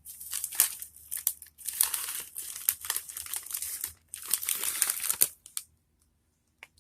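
Snack bag crinkling as it is handled, in three bouts of a second or two each, stopping about five and a half seconds in; a single faint click near the end.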